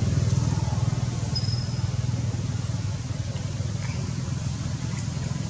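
A steady low rumble of background noise, with a short high whistle about a second and a half in.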